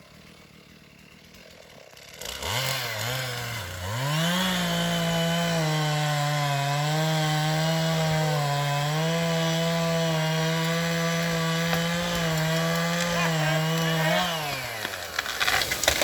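Chainsaw revved up about two seconds in and held at full throttle, cutting through a tree trunk for about ten seconds, its pitch dipping slightly as the chain bites. Then the throttle is released, and sharp cracks follow near the end.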